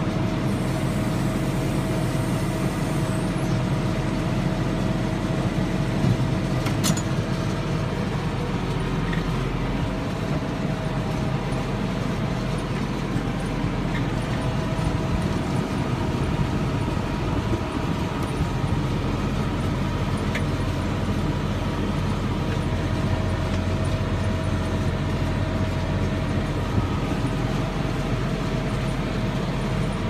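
Massey Ferguson 5610 tractor's diesel engine running steadily under load, heard from inside the cab while it pulls a John Deere 468 round baler through hay. A steady whine sits over the engine, with a few faint ticks.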